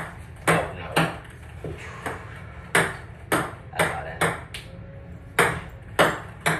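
Ping pong balls bouncing on a hard surface: about a dozen sharp clicks at irregular intervals.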